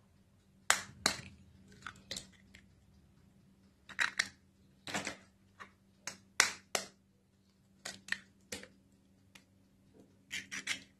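Eggs being cracked into a plastic mixing bowl: short sharp taps and cracks of eggshell against the rim and breaking open, in small scattered clusters.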